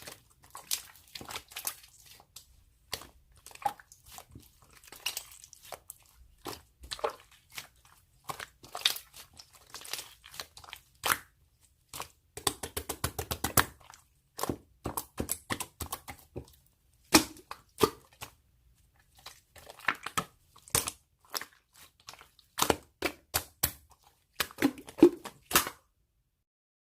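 Irregular crinkling and clicking handling noises, with a dense run of rapid clicks about halfway through.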